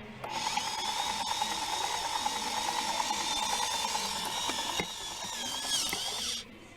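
A toy helicopter's plastic gear mechanism whirring with rapid ratchet-like clicking over a steady whine. It starts suddenly, eases a little about five seconds in, and cuts off abruptly just before the end.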